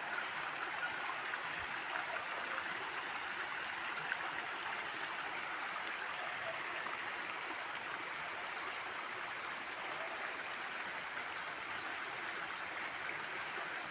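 A steady rushing hiss, like a running stream, that stays even throughout with no distinct events.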